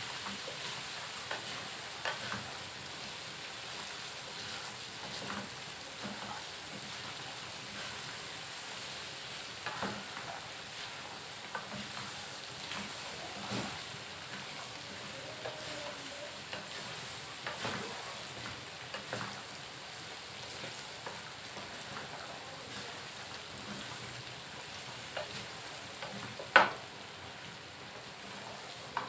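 Peanuts being stir-fried in a wok, a wooden spatula scraping and tossing them through a steady sizzle, with scattered clicks of nuts against the pan and one sharper knock near the end.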